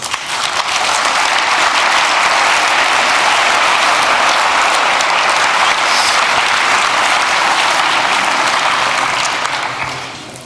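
Large lecture-hall audience applauding: dense, even clapping that builds up in the first second, holds steady, and dies away near the end.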